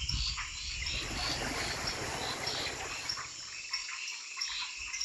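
Rainforest chorus of frogs and insects calling: many short chirps repeating high up, over a low rumble that fades about three seconds in.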